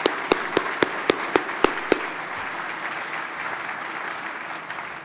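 Audience applauding, with one person's loud hand claps close to the podium microphones about four times a second for the first two seconds. The applause then carries on more evenly and fades out near the end.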